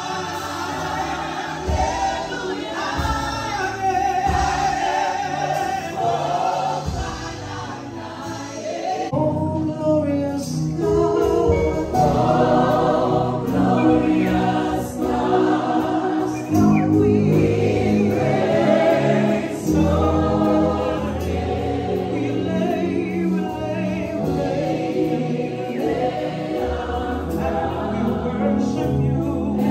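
Choir singing gospel music, growing fuller and louder about nine seconds in.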